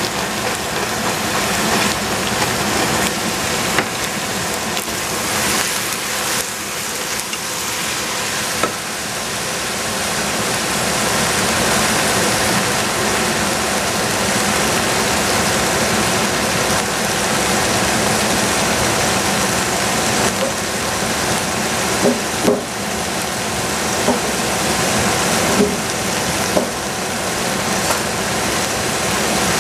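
Chopped vegetables sizzling in a stainless steel pot on the stove, a steady hiss, with a few small knocks a little after the middle.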